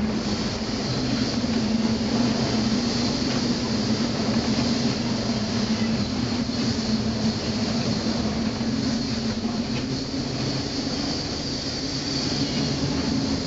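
Steady drone of a ship's engine heard inside the wheelhouse: a constant low hum with a steady hiss over it, unbroken throughout.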